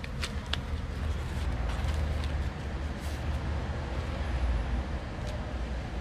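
Steady low mechanical hum with a few light clicks and knocks, a cluster just after the start and single ones around the middle and near the end.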